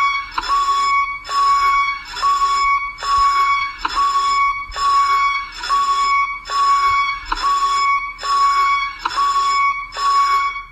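Time-machine DeLorean sound effect: a loud electronic warning beep, each beep opening with a click and ringing with overtones, repeating steadily a little more than once a second, about twelve times.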